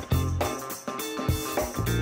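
Background music with guitar and a regular beat.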